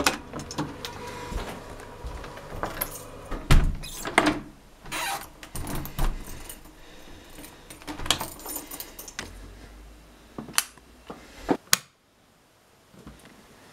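Keys jangling and the clicks and knocks of a door's lever handle and lock being worked as a door is opened, over rustling handling noise; the sound cuts off abruptly near the end.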